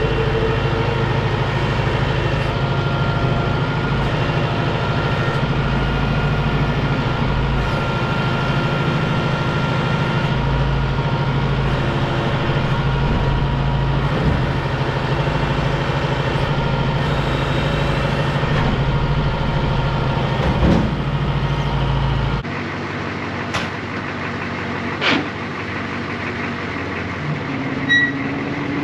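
Heavy vehicle engine running steadily at a constant speed. About 22 seconds in the deep low rumble drops away abruptly, leaving a lighter engine sound with a few sharp knocks.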